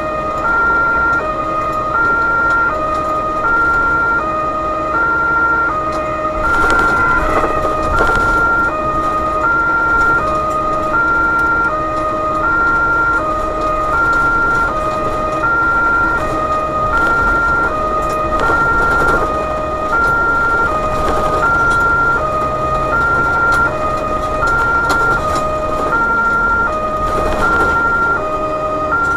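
German two-tone emergency siren (Martinshorn) on a BVG overhead-line tower truck, heard from inside the cab. It switches steadily between a high and a low tone about every two-thirds of a second, over the truck's engine and road noise.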